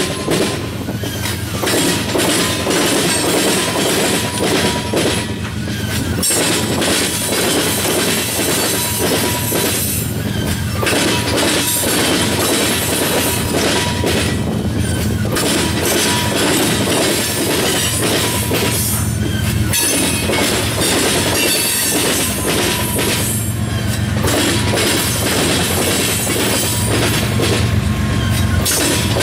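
Loaded CN coal hopper cars rolling past, steel wheels clacking steadily over rail joints. A thin wheel squeal comes and goes as the coal train is backed into the yard.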